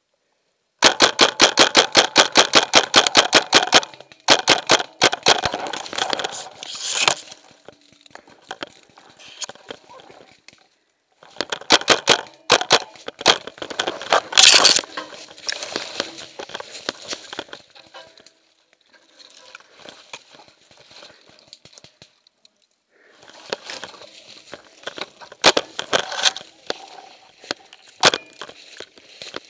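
Paintball marker firing a rapid string of shots, several a second, for about three seconds, followed by more shots in shorter bursts. Later comes quieter crackling and rustling of dry leaves and brush as the player moves through the undergrowth.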